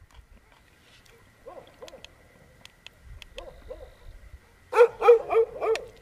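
Dogs barking: a few faint barks, then a louder run of about five quick barks near the end. A spoon clicks now and then against a metal plate.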